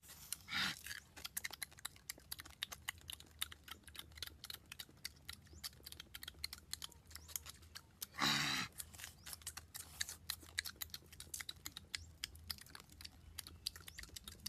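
Crisp, rapid clicking and crunching of people chewing fried snake meat. Two short, louder, pitched vocal sounds break in, about half a second in and about eight seconds in, the second the loudest.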